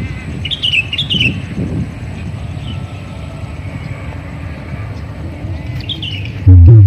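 Small birds chirping outdoors: a quick run of short chirps about half a second in and another near the end, over a steady low rumble of background noise. Loud music with a heavy bass cuts in just before the end.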